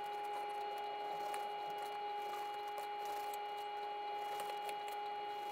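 A kitchen knife slicing through cooked elk tenderloin on a plastic cutting board, with faint soft cuts and light taps against the board. A steady hum runs under it.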